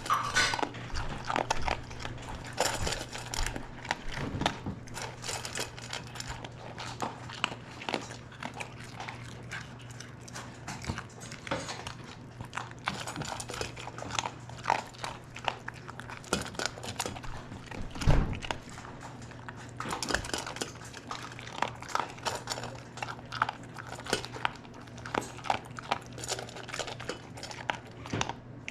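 Dogs eating their breakfast: irregular chewing and crunching with many small clicks, and one louder knock about two-thirds of the way through. A steady low hum runs underneath.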